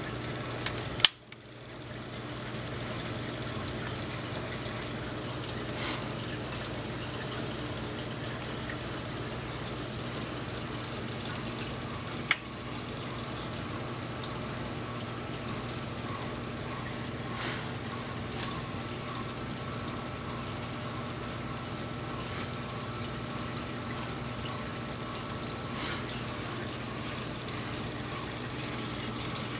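Saltwater aquarium's circulating water trickling and pouring steadily over a low pump hum. Two sharp clicks stand out, one about a second in and one about twelve seconds in.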